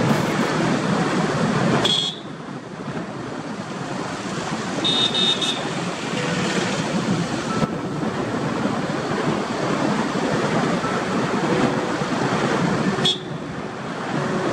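Steady road and engine noise of a car driving along a narrow road. The level drops suddenly about two seconds in and rises again near the end, with a few brief high tones.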